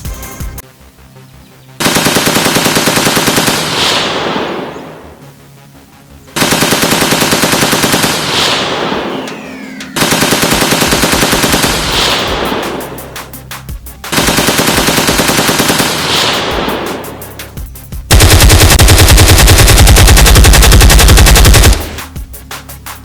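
Automatic gunfire sound effect: five long bursts of rapid, even fire, each two to four seconds, with short quieter gaps between them, the last burst the longest and loudest.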